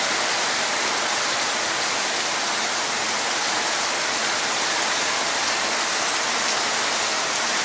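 Heavy rain pouring down, with water running off a veranda roof: a steady, even hiss that does not let up.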